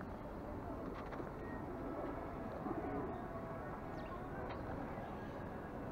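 Pigeons cooing over a steady outdoor background hum. The clearest coo comes about halfway through.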